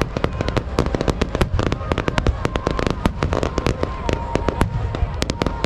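Rapid barrage of aerial fireworks: many sharp bangs and crackling pops a second, overlapping with a low rumble from the bursting shells.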